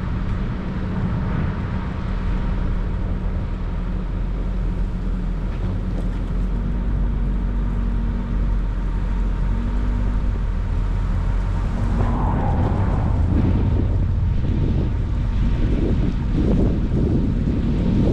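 A motor vehicle's engine running steadily, with wind buffeting the microphone; the gusts grow stronger toward the end.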